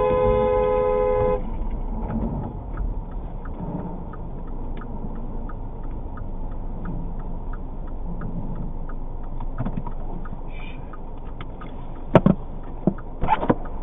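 A car horn blares for about a second and a half, then cuts off. A regular faint ticking follows, about three ticks a second, over a low steady rumble of a stopped car, with a few sharp knocks near the end.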